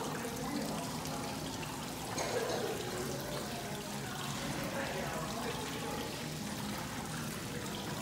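Small indoor rock waterfall fountain: water trickling and splashing down stacked slate stones into a pool, a steady, unbroken sound.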